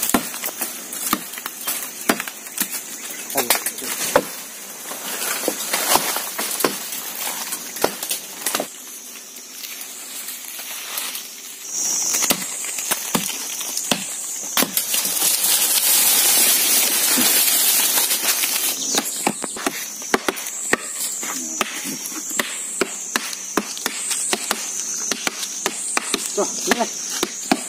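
Repeated sharp chops and knocks of machetes and wooden sticks striking wood and bark. From about halfway through, insects drone high and pulse in slow swells.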